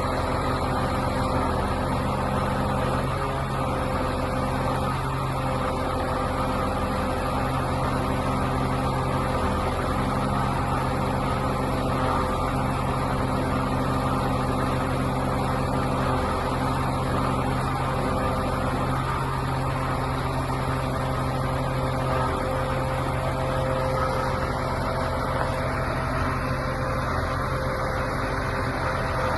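Mercedes-Benz Actros 3241 truck's diesel engine running at a steady speed with an even hum, no revving.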